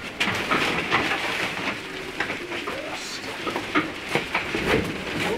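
A small rear-engined sports car being pushed by hand: irregular clatter, knocks and scuffs as it rolls over the concrete floor and gravel, with shuffling footsteps of the men pushing.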